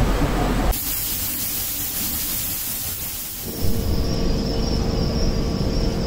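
A low machine rumble cuts about a second in to a steady, bright hiss. Past the middle, this gives way to a low rumble with a steady high-pitched whine over it.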